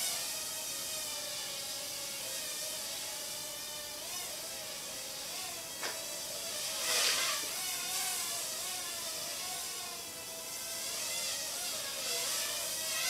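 Small Bayangtoys X9 toy quadcopter hovering, its motors and propellers giving a high whine whose pitch wavers up and down as the throttle is worked. A single sharp click about six seconds in, then a brief louder rush of the rotors about a second later.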